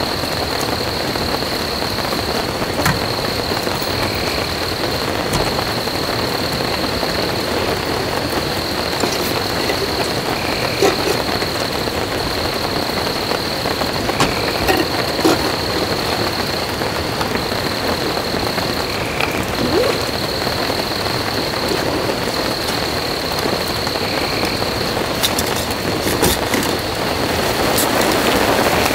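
Heavy rain falling steadily, with a few scattered drip taps. Under it runs a steady high-pitched tone, and a short high chirp repeats about every five seconds.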